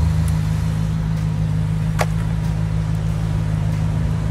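Steady low engine and road drone heard from inside a moving car, with a single sharp click about two seconds in.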